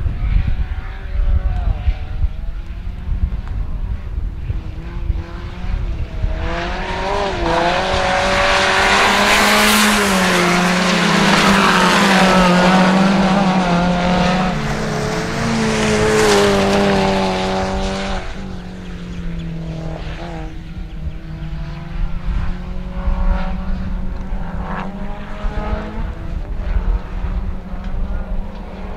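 1400cc rallycross cars racing in a pack, engines revving hard with pitch rising and falling as they accelerate and shift. They are loudest as they pass close, from about six to eighteen seconds in.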